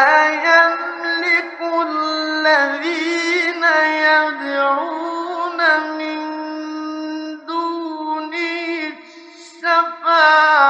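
A man reciting the Quran in the melodic tajwid style, from a 1958 radio recording. He draws out long, ornamented notes, breaks off briefly near the end, and starts the next phrase.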